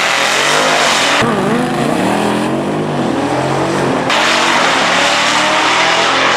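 A sport bike and a Dodge Challenger muscle car launching in a drag race, their engines revving hard and climbing in pitch as they accelerate. The pitch rises and falls, and the sound changes abruptly twice, about a second in and again about four seconds in.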